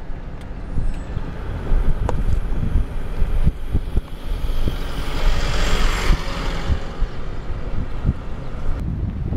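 Road rumble and wind buffeting on the microphone from a vehicle driving along, with irregular low thumps. A louder rushing hiss swells and fades about five to six seconds in.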